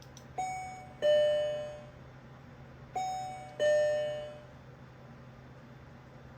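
Electronic two-tone ding-dong chime, a higher note then a lower one, each ringing out and fading, sounded twice about two and a half seconds apart.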